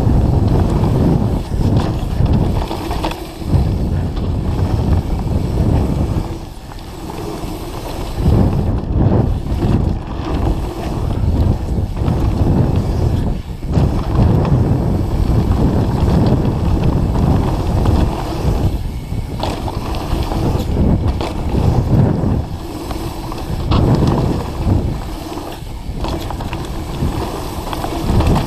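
Mountain bike descending a dirt forest trail at speed: wind buffeting the camera microphone over the rumble of the tyres on the dirt, rising and falling with a few brief lulls.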